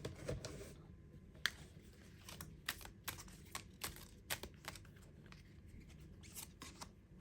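Tarot cards being handled: a quiet string of short, irregular clicks and slides of card on card.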